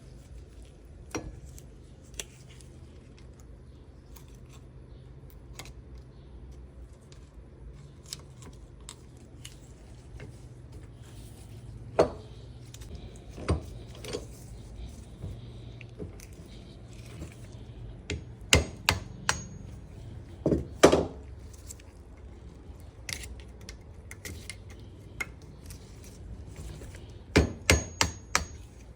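Hand tools working on a steering shaft universal joint: scattered metallic clicks and taps, with a few sharper knocks and strikes in short clusters, louder later on.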